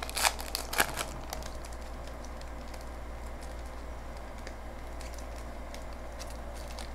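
Foil trading-card pack wrapper crinkling and crackling in a few quick bursts in the first second as it is handled, then a steady low hum with a few faint ticks.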